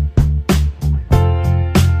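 Background music with a steady beat of about three strokes a second over a pulsing bass line.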